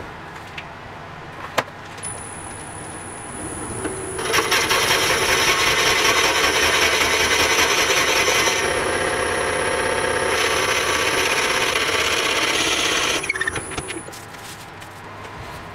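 Wood lathe spinning an elm burl and epoxy resin pepper mill blank while a hand-held turning tool bores out its end: a loud, steady cutting and scraping starts about four seconds in and breaks off around thirteen seconds. A thin high whine runs under it.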